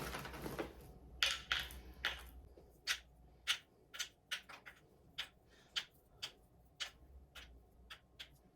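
Almonds being counted out one at a time, each landing with a small, sharp click, about two a second and unevenly spaced.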